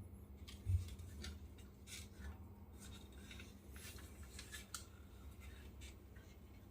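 Faint handling noise: scattered light clicks and rustles, with one soft low bump under a second in, over a low steady hum.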